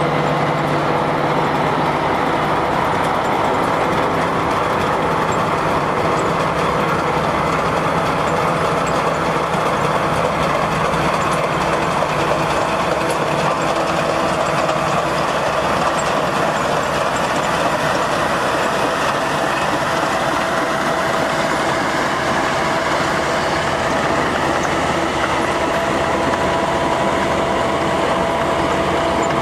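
Heavy road-construction machinery running steadily: a constant engine and mechanical noise with a few steady hums.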